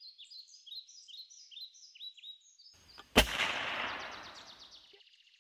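A songbird repeating quick falling chirps, about three a second, then a single gunshot about three seconds in, whose echoing tail dies away over about two seconds.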